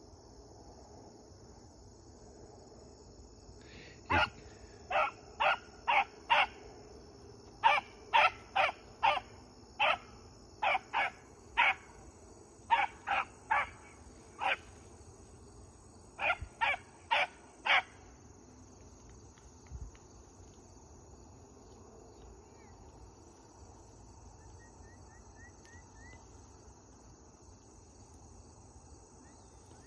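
An animal's short, loud calls, repeated mostly in groups of three or four for about fourteen seconds, then stopping. A steady high hum of crickets runs underneath.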